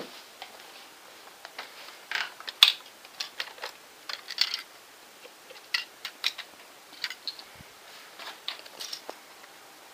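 Plastic clicks and rattles of a LEGO brick-built bolt-action rifle being handled, irregular and of varied loudness, with one sharper click about two and a half seconds in.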